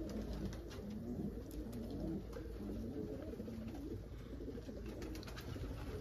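Domestic pigeons cooing in their loft: many birds overlapping in a low, continuous cooing, with a few faint clicks.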